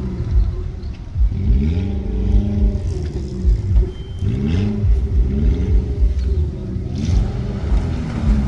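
Suzuki Vitara's engine revving in repeated surges, the revs rising and falling about four times as it crawls over dirt mounds and ruts, over an uneven low rumble.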